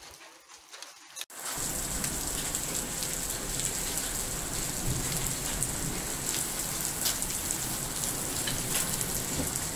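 Heavy rain pouring down as a steady hiss, with scattered sharper drop hits. It starts suddenly about a second in.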